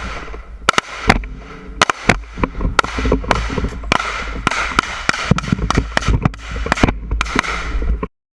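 Rifle gunfire on a range: several shooters firing irregular, sometimes overlapping shots at about two to three a second, each with an echoing tail. It cuts off suddenly near the end.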